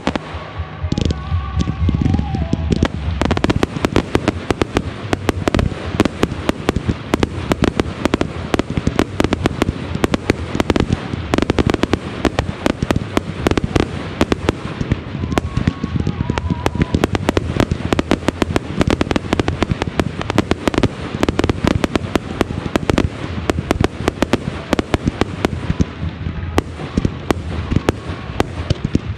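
Consumer (1.4G) fireworks firing a dense barrage: many sharp bangs and crackles overlapping continuously, several reports a second, getting denser about three seconds in.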